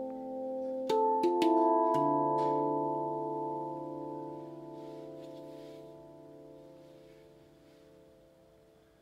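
RAV Moon steel tongue drum in D Integral tuning, struck with the fingertips several times in quick succession in the first two seconds, the last strike adding a low note. The notes then ring on together and fade slowly, with a long sustain.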